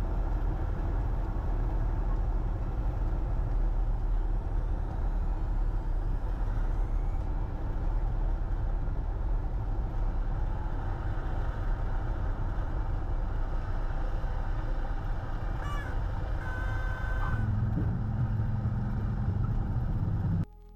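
Cockpit noise of a Cessna 172H at low power on final approach: its six-cylinder Continental O-300 engine and the airflow make a steady drone. Near the end a short steady tone sounds for about a second, typical of the stall warning horn in the landing flare, and a heavier low rumble follows as the plane settles onto the runway.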